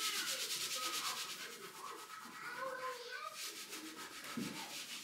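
A cloth wiping a glass tabletop in quick back-and-forth strokes, a fast, even rubbing that is strongest at the start and again in the last second and a half.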